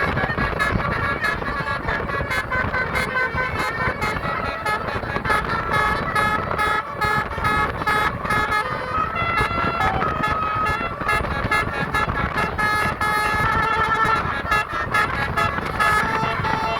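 Bus 'basuri' (telolet) musical air horns sounding held, multi-note tunes that step up and down in pitch, over a continuous low rumble.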